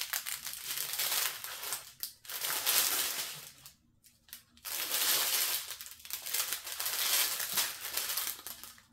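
Thin plastic bags of diamond painting drills crinkling as they are handled, in three stretches with short pauses between.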